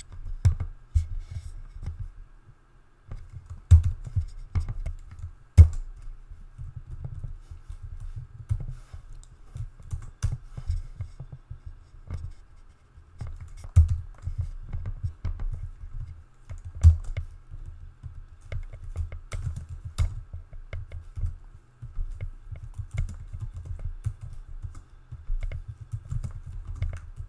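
Typing on a computer keyboard: irregular runs of keystrokes with short pauses between them, each key a click with a low knock.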